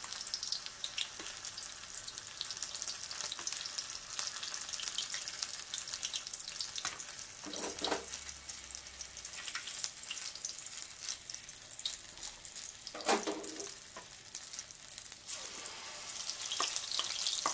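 Prawn fritter batter deep-frying in hot oil in a wok: a steady sizzle full of fine crackles, growing louder near the end.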